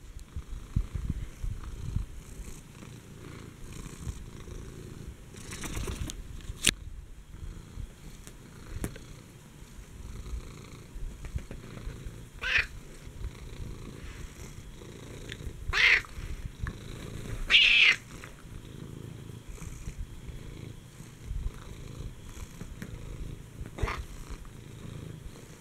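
Domestic cat purring steadily while being stroked, a low continuous rumble. A few brief sharper noises break in, the loudest about two-thirds of the way through.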